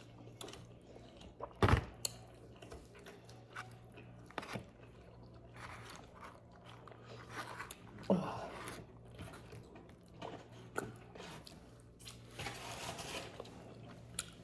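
Close-up eating sounds: chewing and biting with wet mouth clicks and smacks, and one sharp knock a little under two seconds in.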